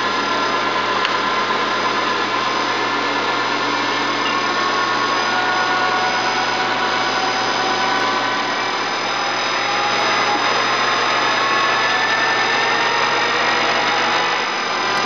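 Acer 1760G geared-head engine lathe taking a dry facing cut in 4140 pre-hard steel. Its running note rises slowly in pitch as constant surface speed raises the spindle speed while the tool feeds toward the centre.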